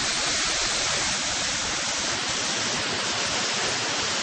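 Martin Creek Falls, a small mountain waterfall running high, rushing steadily with a loud, even roar of falling water.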